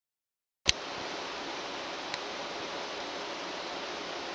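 Steady, even hiss of the interior of a Tokyo Metro 05 series train car. It comes in with a click after a brief dropout at the start.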